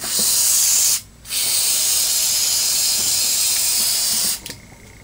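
Ironlak aerosol spray paint can spraying through a fat cap: a burst of about a second, a short break, then one long steady hiss of about three seconds that stops near the end.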